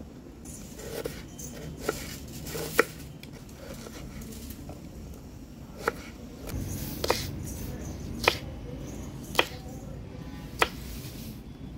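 Kitchen knife cutting onion and green chillies on a wooden board: separate sharp knocks of the blade striking the board, about seven in all, coming roughly once a second in the second half.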